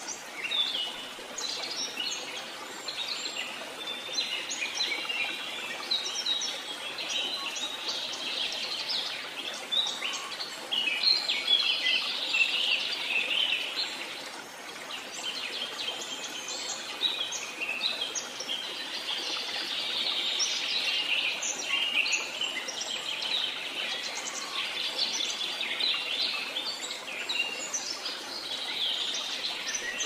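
Many birds chirping and singing at once, dense overlapping calls and trills throughout, over a steady rush of flowing water.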